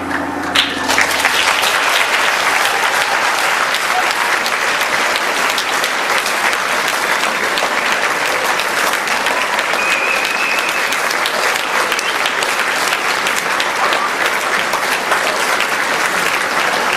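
Audience applauding a school band, starting about half a second in as the band's final held chord dies away.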